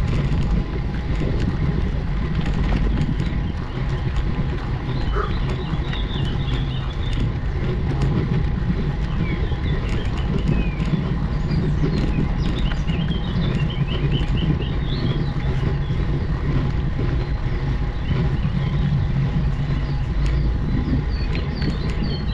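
Steady low rumble of travel up a mountain road. Birds chirp in short bursts now and then, about five seconds in, around ten to thirteen seconds, and again near the end.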